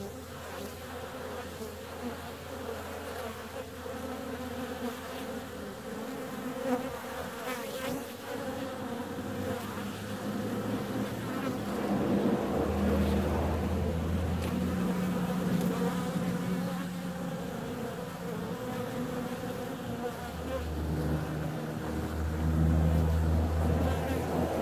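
Honeybees buzzing as they fly in and out at the hive entrance: a dense, steady hum, with single bees droning close past now and then. It grows louder about halfway through and again near the end.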